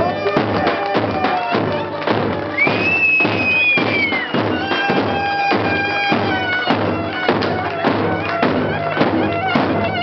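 Live wedding clarinet playing a lively reedy melody, with a long high held note that bends down about two and a half seconds in, over a steady beat of about two strokes a second.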